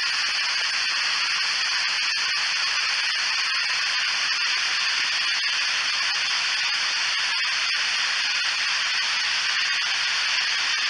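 Ghost radio (spirit box) app playing steady, even static hiss, strongest in the treble, with no words heard through it.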